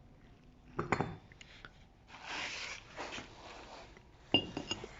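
Metal clinks and scraping as a wheel hub bearing assembly is handled. There are a few light clicks about a second in, then some rustling. A sharp clink with a brief metallic ring comes near the end.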